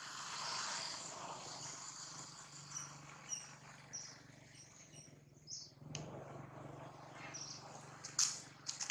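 Small birds chirping in short, high calls over a background of insects, with a steady low hum beneath. A few sharp clicks come in the second half, the loudest near the end.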